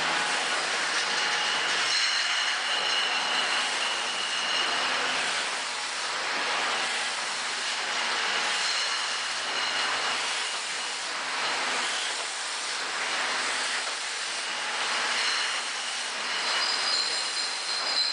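Glass-bottle bottling and packing line running: a steady, dense mechanical clatter of conveyors and packing machinery, with thin high squealing tones rising out of it for a few seconds at a time.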